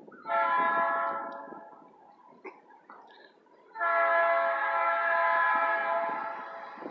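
Air horn of a GE B23-7 diesel locomotive sounding a short blast, then a longer blast of nearly three seconds starting about four seconds in.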